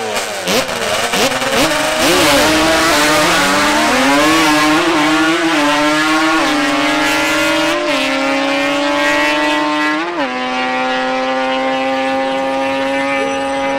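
Drag-racing quad (ATV) engine revving on the start line, launching about two seconds in and pulling hard down the track, its pitch climbing and dropping back at three upshifts, then holding a long, slowly falling note as it runs away.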